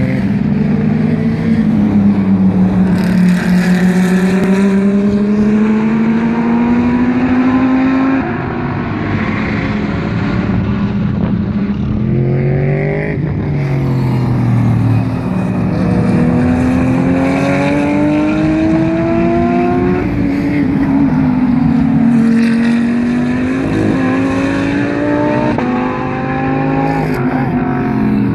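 GT3 race cars running at full throttle past the track. Their engine notes climb steadily in pitch and drop back at gear changes, with several cars' engines overlapping.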